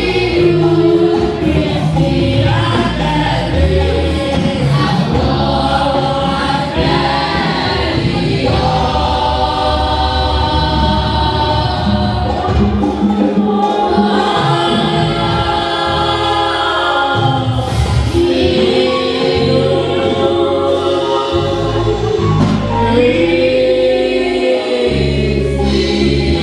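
A choir singing a gospel song over a band accompaniment with a steady bass.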